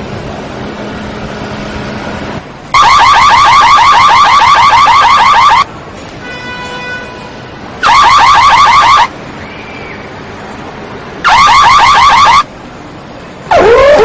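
Car alarm siren going through its tone cycle: loud bursts of rapid, repeating rising chirps lasting one to three seconds each, with short pauses between. Near the end it switches to a lower, slower whooping pattern.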